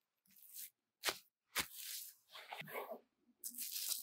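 Plastic cling film crinkling and rustling in short irregular bursts as it is handled and draped over dough, with a couple of sharp crackles about a second in.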